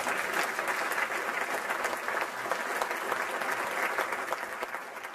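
Audience applauding: many hands clapping steadily, easing off a little near the end.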